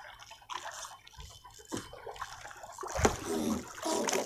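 Sea water sloshing and splashing against a small wooden boat's hull, with a few scattered knocks. Faint voices come in near the end.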